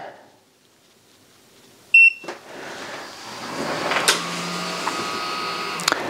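Oukitel P2001 portable power station switching on: a single short electronic beep about two seconds in, then its cooling fan spins up and runs with a steady whir and a faint whine.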